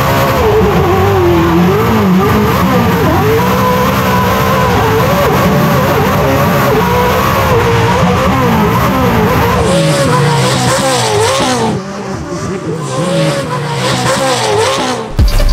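Pro 4 short course truck's V8 race engine running at full throttle, heard from inside the cab, its pitch wavering up and down as the tyres spin on dirt. It eases off about twelve seconds in, and music with a heavy bass beat cuts in at the very end.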